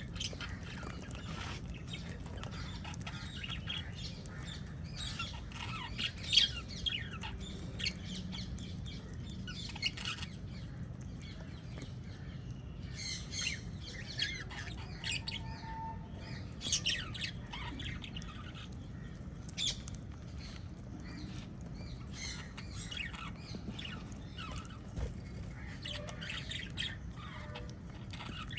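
Small pet parrots (lovebirds and budgerigars) chirping and squawking in a flock, many short high calls overlapping irregularly, over a steady low hum.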